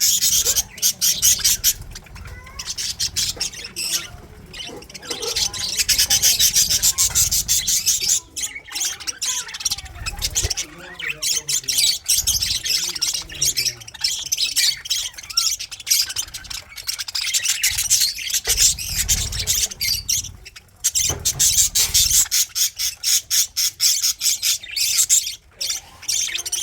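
A flock of budgerigars chattering and squawking: dense, rapid, high-pitched calls that come in loud spells with short lulls between them.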